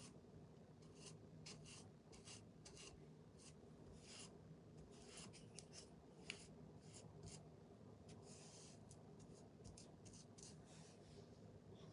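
Paintbrush brushing paint onto a corbel: faint short strokes in an uneven rhythm, roughly two a second.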